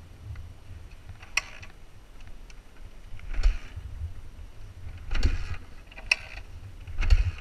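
Dirt bike being kick-started again and again: about five short turns of the engine, one to two seconds apart, that don't catch.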